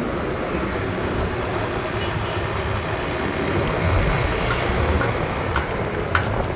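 Steady road noise from a moving motorcycle at speed: wind rushing over the microphone over the engine and tyres, with city traffic around.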